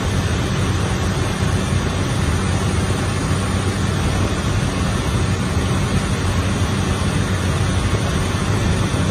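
Light airplane's engine and propeller heard from inside the cockpit in flight: a steady drone with a low hum under an even rushing noise.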